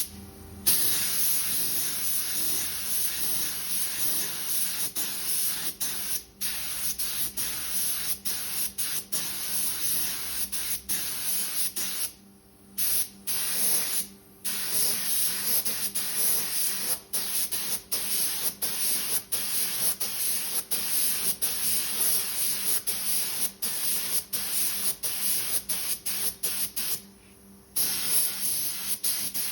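Etch primer being sprayed onto a scuffed alloy wheel: a steady hiss of spray, broken by many brief releases and a few longer pauses, at about 12, 14 and 27 seconds in.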